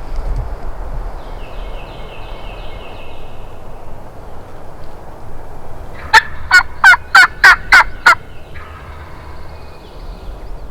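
Slate friction turkey call yelping: a run of seven loud, scratchy yelps about a third of a second apart, over steady wind rumble on the microphone.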